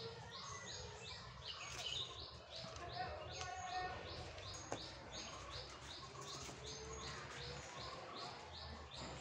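A bird chirping over and over in a steady, even rhythm, about two or three short high chirps a second, with faint outdoor ambience.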